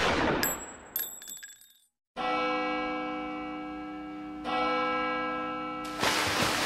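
Film soundtrack: a crashing hit dies away under bright metallic chiming in the first second or so. After a short dead silence comes a sustained synthesized chord that swells twice, with a burst of rushing noise near the end.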